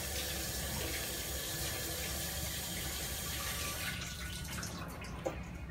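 Water running from a kitchen tap into a stainless steel sink, thinning out about four seconds in, followed by a few small knocks.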